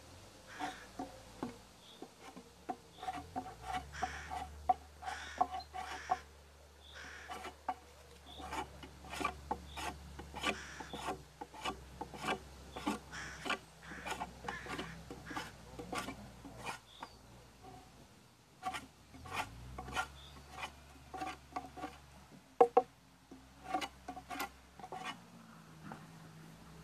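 Wooden plank being smoothed by hand: quick, irregular scraping strokes, a few a second, with short pauses and one sharper knock near the end.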